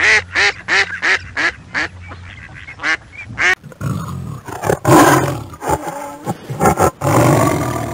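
A goose calling in a quick run of short honks, about three a second, then a sudden switch about three and a half seconds in to a tiger growling and roaring, with several louder roars.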